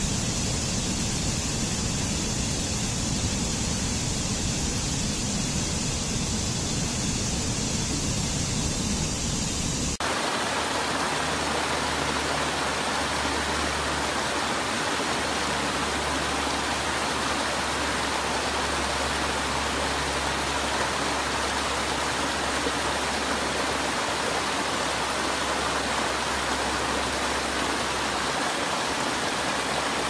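Rushing water of a rocky stream cascading over boulders, a loud, steady rush. About ten seconds in it changes abruptly to a brighter, more even rush of water.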